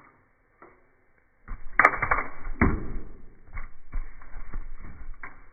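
Plastic fidget toys being handled and twisted: a busy run of clicks and rattles starting about a second and a half in.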